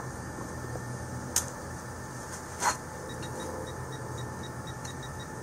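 Hands digging in loose soil in a hole, with two short scrapes, the second and louder one about halfway through. Under them runs a steady low mechanical hum, and in the second half there is a faint run of quick, evenly spaced high beeps.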